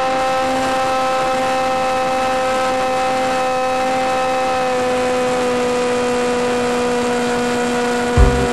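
Electric pusher motor and propeller of a Funjet RC plane running at steady power in flight, a constant whine with no change in pitch. A low, uneven rumble starts near the end.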